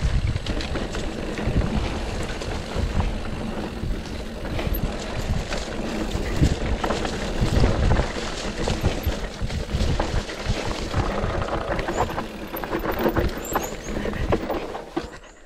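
GT Sanction Expert 2018 enduro mountain bike descending a rough trail at speed: tyres on dirt and rock, with a constant clatter of chain slap and rattling parts and many sharp knocks from hits. Wind rushes over the chest-mounted camera's microphone. The noise falls away sharply near the end.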